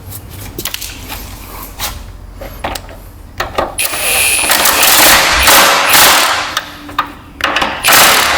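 Impact wrench rattling in two bursts as deck hardware is driven: a long run of about three seconds, then a shorter one near the end. Before them come scattered clinks and knocks of tools and parts being handled.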